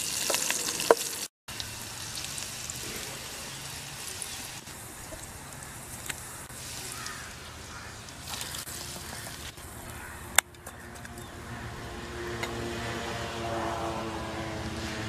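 Onion and garlic sizzling in hot oil in a metal kadai as they are stirred with a ladle; after a brief cut, quieter sizzling as the tempering is tipped into a clay pot of curry, with one sharp metal clink about ten seconds in. Near the end a steady engine hum grows louder.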